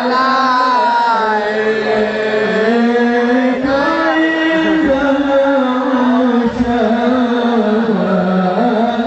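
A voice singing an Islamic devotional song (sholawat), drawn out over long held notes that slide slowly up and down in pitch.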